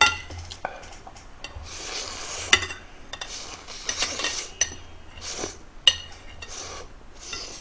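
Metal spoon scraping and clinking on a ceramic plate as leftover stir-fry is scooped up, with several sharp clinks, between short bursts of close-up eating and slurping noise.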